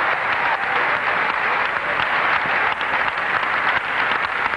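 A large audience applauding, many hands clapping at once in a steady, dense patter.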